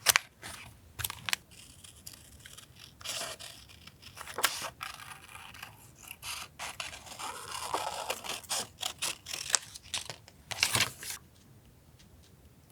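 Paper being cut and handled: scattered snips, crinkles and scrapes with a few sharper clicks, stopping shortly before the end.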